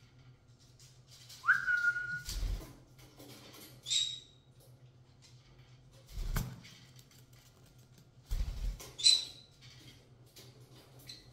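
Young Pyrrhura conure giving short high chirps and one rising whistle, with three dull knocks and a flutter of wings as it moves on the hanging ladder toy and flies down to the cage.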